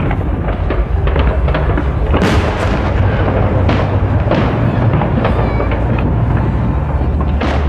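Fireworks bursting in quick succession, a dense run of booms and bangs with crackling between them. A few short whistles come through partway in.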